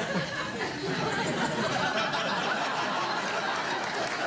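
Studio audience laughing, a steady wash of many voices.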